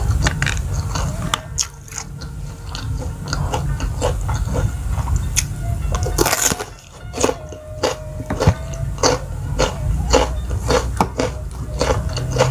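Close-miked eating sounds: chewing and smacking with short crisp clicks throughout, and a loud crunchy bite into a raw bitter melon about six seconds in.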